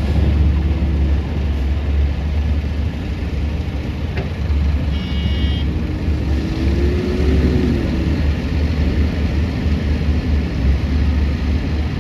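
Heavy diesel mining machinery running with a deep, steady rumble; an engine note rises and then falls back in the middle. A short high beep sounds about five seconds in.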